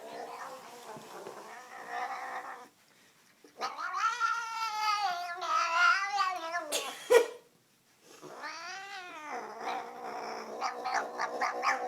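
A cat caterwauling: two long, wavering yowls that rise and fall in pitch. The first lasts about three seconds and the second, shorter one comes about a second later. Quieter cat sounds come before and after them.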